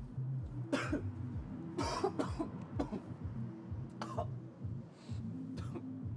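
A person coughing repeatedly in harsh, separate hacks about a second apart, over a low steady hum.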